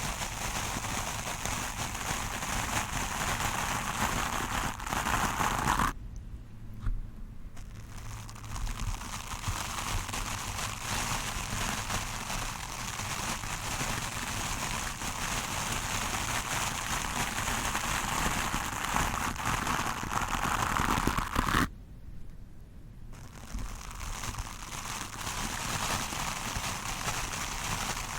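Stiff-bristled wooden brush scrubbed hard against a microphone: a dense, rough scratching crackle. It stops briefly twice, about six seconds in and again about twenty-two seconds in.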